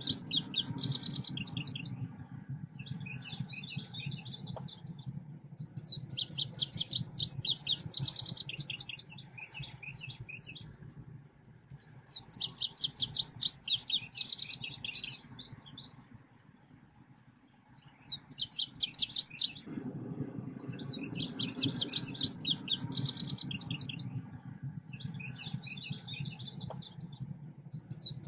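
Recorded song of a selendang biru bird, played as a lure (pancingan). Bursts of rapid, high chirping trills, each a couple of seconds long, come back every few seconds over a low steady hum.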